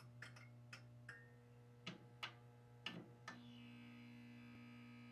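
Faint neon-sign sound effect: a low electrical hum with a handful of irregular clicks as the sign flickers on, settling into a steady buzz a little over three seconds in.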